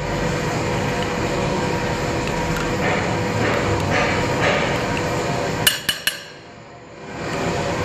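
A steady mechanical hum and noise, with three quick, sharp metallic clicks a little under six seconds in, after which the noise drops briefly and then comes back.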